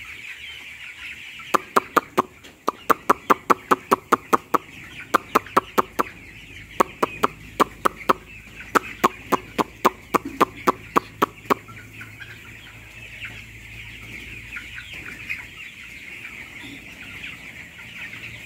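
A flock of young broiler chickens peeping and chattering steadily. For about ten seconds a person makes a run of sharp mouth clicks at about three a second to call the birds, then stops while the flock goes on.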